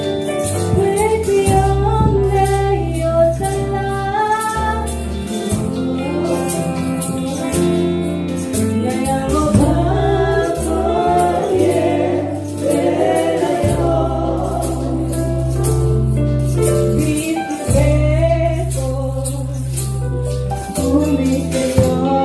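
Congregation or choir singing a gospel worship song in Lingala over a band with bass and percussion, at a steady beat.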